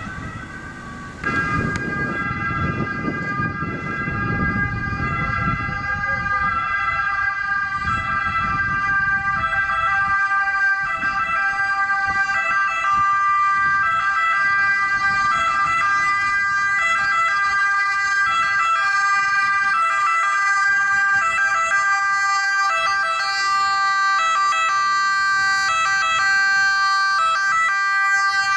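Ambulance two-tone siren sounding, its steady tones switching back and forth in a repeating pattern, louder from about a second in. A vehicle's low rumble underlies the first few seconds.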